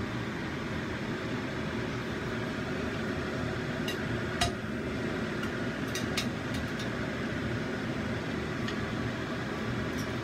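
Steady fan-like hum with a few sharp snips of large kitchen scissors cutting raw chicken thigh; the loudest snip comes about four seconds in.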